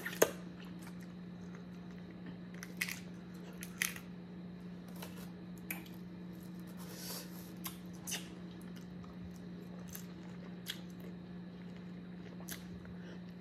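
Boiled crawfish being eaten by hand: scattered short wet smacks, shell cracks and chewing sounds, the loudest just after the start, over a steady low hum.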